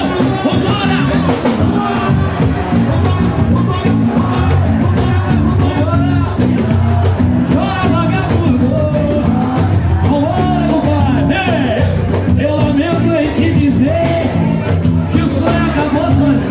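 Live samba from a roda de samba: a band playing a steady rhythm with voices singing over it.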